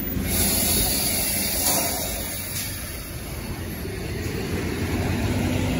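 Diesel engine of a Mercedes-Benz coach bus pulling past at close range, a steady low rumble. A brief high hiss sounds at the very start.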